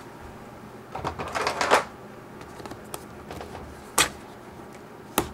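Fingers rubbing and picking at the clear seal sticker on a cardboard CPU box: a scratchy rustle about a second in, then a sharp click about four seconds in and another near the end.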